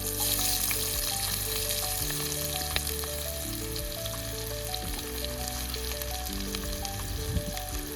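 Onions sizzling steadily as they fry in hot oil in a pan. Background music with a simple melody and bass line plays underneath.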